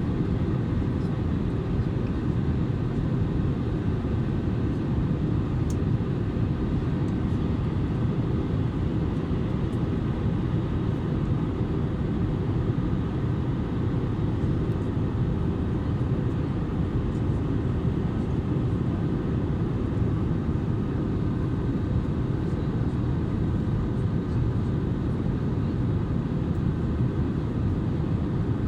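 Steady cabin noise inside an Airbus A320neo airliner in flight on its descent: a constant low rumble of airflow and Pratt & Whitney PW1100G geared turbofan engines, with faint steady tones above it.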